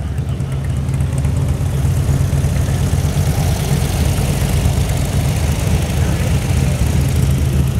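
Air-cooled flat-four engine of a split-window Volkswagen Type 2 bus running at low speed as the bus rolls slowly past, a steady low engine note.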